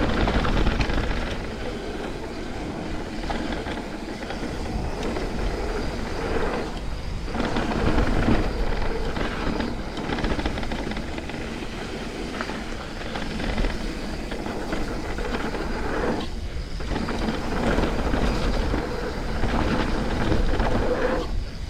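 Mountain bike descending a wet dirt trail: continuous tyre rumble, rattling of the bike and rushing wind on the microphone. The noise drops away briefly twice, about seven and sixteen seconds in.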